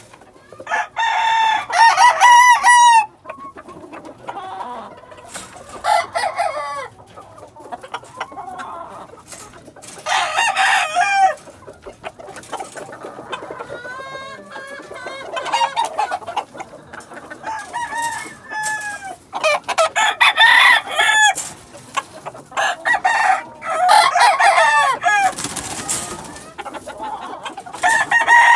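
Several roosters crowing in turn, loud crows every few seconds at differing pitches, with quieter clucking between them and a short rustling noise near the end.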